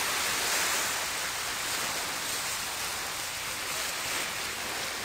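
Steady, even hiss of ocean surf washing on the shore.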